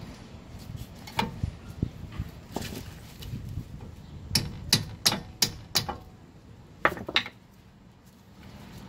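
Metal clinks and knocks as a brake caliper, with its pads, is set back over a new front disc rotor. A few scattered knocks come first, then a quick run of five sharp clanks midway, and two more about a second later.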